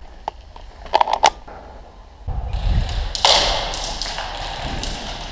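Four sharp clicks in quick succession about a second in. From about two seconds a loud rush of scuffing and rustling from the player's own movement and gear rubbing against the camera, fading off.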